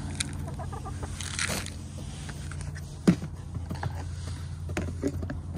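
Backyard hens clucking softly, with a few sharp clicks, the loudest about three seconds in, over a steady low hum.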